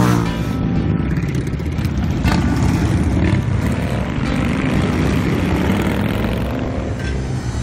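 A procession of motorcycles riding past one after another, their engines running.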